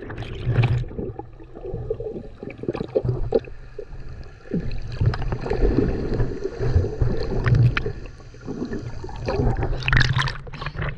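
Muffled gurgling and sloshing of sea water, with many irregular splashes and knocks.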